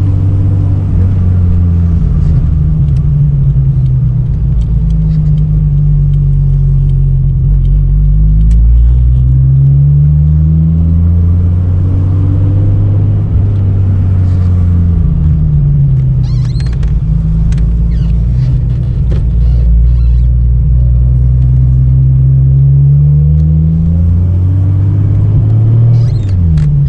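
Holden VL Turbo Commodore's turbocharged 3.0-litre straight-six (RB30ET) running while the car is driven, the engine note rising and falling several times as it accelerates and eases off.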